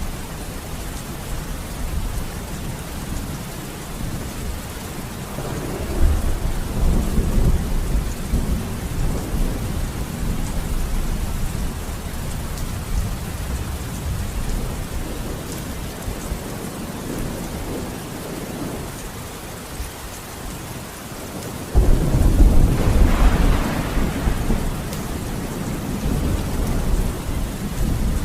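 Steady rain with thunder. A low rumble rolls in about six seconds in, and about three-quarters of the way through a louder thunderclap starts suddenly and rumbles away over a few seconds.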